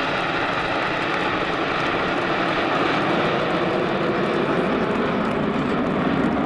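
Turbojet engines of a close formation of Aermacchi MB-339 jet trainers flying over: a loud, steady rushing jet noise.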